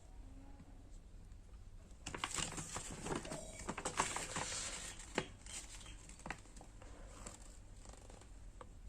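Paper and packaging being handled: rustling and crinkling with sharp clicks and taps, densest from about two to five seconds in, then a few scattered taps.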